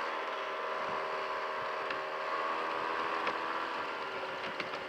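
Honda Silver Wing maxi-scooter under way, its engine running steadily under wind and intake noise, with a few faint clicks in the second half. The intermittent crunch the rider is listening for is not heard.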